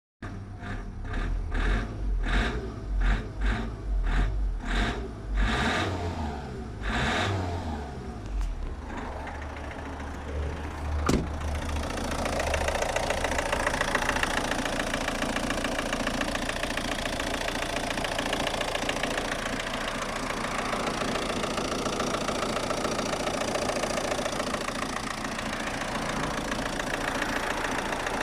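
Opel Astra G 1.7 DTI 16v (Y17DT) turbo-diesel engine running with a loud tractor-like clatter, a noise that goes with a loss of power and that new injectors, a new TDC sensor and an overhauled injection computer have not cured. For the first several seconds it pulses unevenly about twice a second, then settles into a steady clatter after a sharp click about eleven seconds in.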